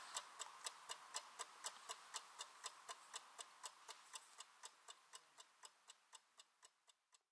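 Mechanical chess clock ticking, about four ticks a second, faint and fading out steadily until it stops shortly before the end.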